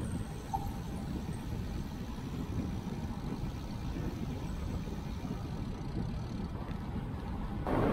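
Wind rumbling on the microphone of a camera on a moving road bike, with road noise: a steady, fluttering low rumble. Near the end it switches abruptly to a louder, hissier rush.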